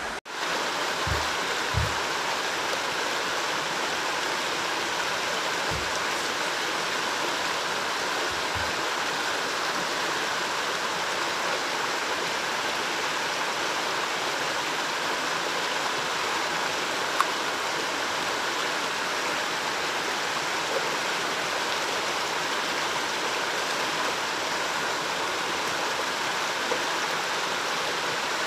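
A stream running steadily, with a few soft low thuds in the first nine seconds.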